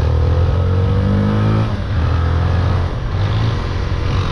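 Motorcycle engines running while riding, with one engine's pitch falling over the first second and a half as the throttle eases off, over a steady low rumble.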